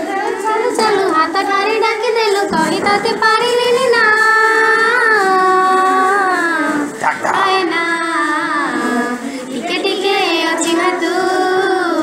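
A high solo voice singing an Odia song, holding long notes that bend and waver in pitch.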